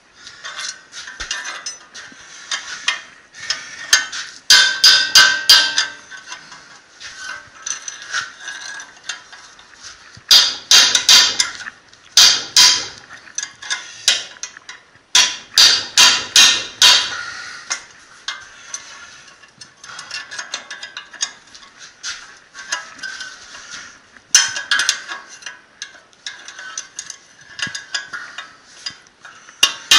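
Steel hammer driving a drift against the cast rear hub carrier of a Jaguar XJ, knocking out the hub bearing cups: several runs of quick, ringing metal-on-metal blows, about four a second, the heaviest in the middle, with lighter tapping and clinking between them.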